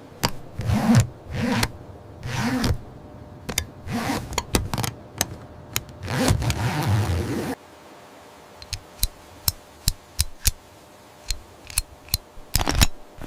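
A run of loud engine-like swells, one after another, that stop abruptly about seven and a half seconds in. Scattered sharp clicks and taps follow.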